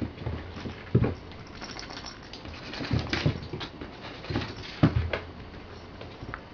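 Two-month-old kittens pouncing and scampering on a wooden floor while playing with a crinkly cat-teaser toy. Paws patter and thump on the boards over the toy's rustle, with heavier thumps about a second in, around three seconds and near five seconds.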